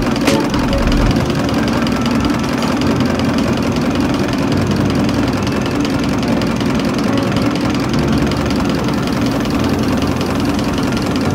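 Diesel injection-pump test bench running steadily, driving a Denso four-cylinder rotary injection pump during calibration: a continuous mechanical drone with a fast, even pulse.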